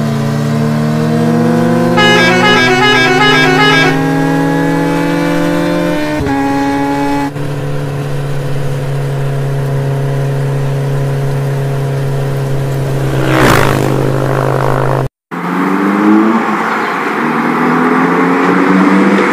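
Engine revving sound effect: a steady motor drone that climbs slowly in pitch, with a warbling electronic chirp from about two to four seconds in and a quick whoosh past the thirteen-second mark. After a brief dropout near the end, the engine rises again over a hiss of rain.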